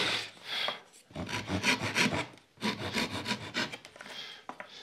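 A fine-toothed hand saw cutting kerfs across a stack of wooden lattice bars in rapid short strokes, in two runs with a brief stop in between.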